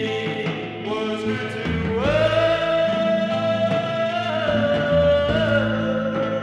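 Late-1960s psychedelic rock with singing: a long held sung note slides up into place about two seconds in, then steps lower twice, over the band.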